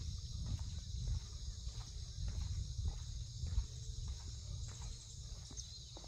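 A steady, high-pitched chorus of insects, with a person's footsteps about twice a second and a low rumble on the microphone.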